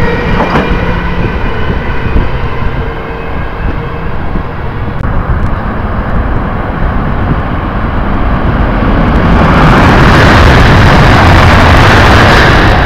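An NS Sprinter electric multiple unit running past with a steady whine from its motors over track rumble, fading out within the first few seconds. After that comes a rising, loud rushing noise that peaks in the last few seconds and drops away at the end.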